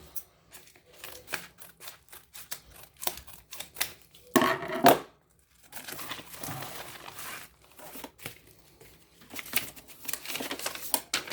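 A small mail package being opened by hand: scattered clicks and taps of handling, a loud tearing rip a little over four seconds in, then rustling of the packaging.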